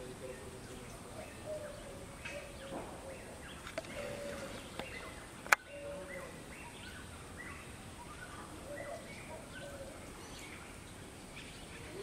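Forest ambience with scattered short bird chirps and calls over a steady faint high hiss. A single sharp click about five and a half seconds in.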